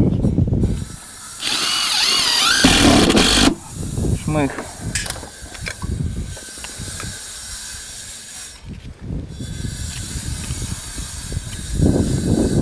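Cordless drill-driver screwing down the clips that hold an aluminium facade panel: a run of about two seconds with a wavering motor whine, then a shorter run about a second later. Low rumbling noise near the start and near the end.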